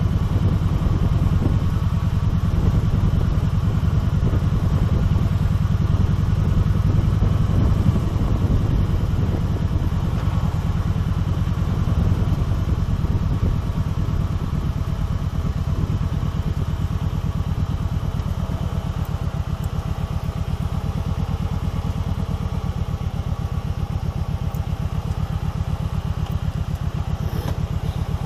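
Kawasaki Vulcan 1700 Voyager's V-twin engine running steadily under way with a deep, even rumble. It gets a little quieter in the second half.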